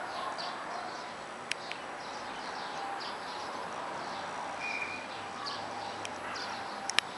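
Small birds chirping repeatedly over a steady background hiss, with a few sharp clicks, the last two near the end.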